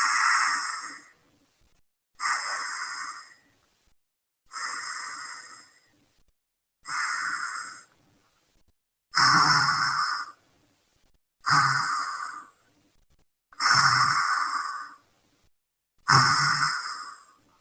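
A sleeping person snoring: eight loud, slow breaths, one about every two seconds. From about halfway through, the breaths take on a low rasping rumble.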